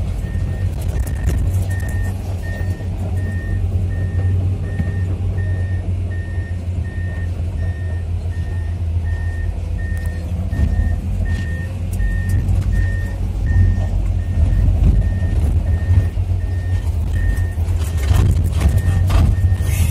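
Komatsu PC210-10M0 excavator tracking uphill: its diesel engine runs steadily while the travel alarm beeps about one and a half times a second. A few clanks come near the end.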